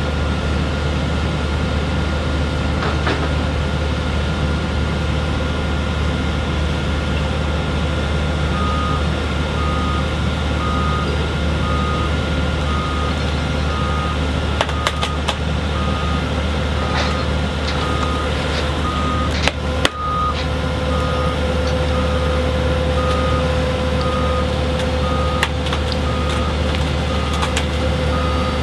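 Heavy machinery running with a steady low hum; about eight seconds in a backup alarm starts beeping at an even pace and keeps going, with a few short metallic clanks and knocks in the second half.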